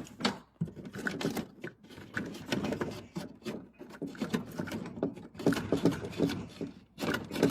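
Hands rummaging among electrical wires and fittings: irregular rustling, scraping and quick clicks as cables are felt for and shifted.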